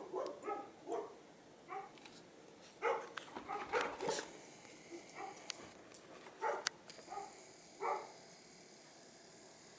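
Dog barking in short, separate barks, about seven times with pauses between them.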